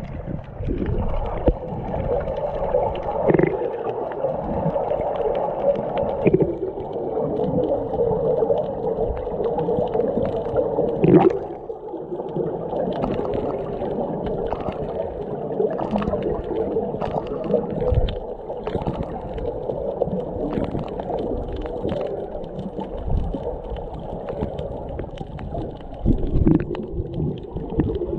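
Muffled underwater sound picked up by a submerged camera: a steady watery rush and gurgle, with scattered sharp knocks.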